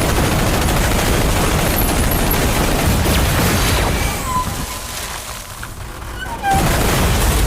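Action-trailer sound design: heavy booms and rapid, dense blasts like massed gunfire over a rumbling score. It drops away about four seconds in, leaving a few brief faint ringing tones, then hits loud again about six and a half seconds in.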